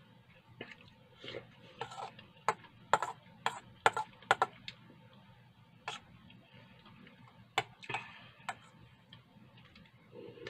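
A metal spoon clinking and scraping against a stainless steel bowl in irregular sharp clicks, thickest a few seconds in and again a little later.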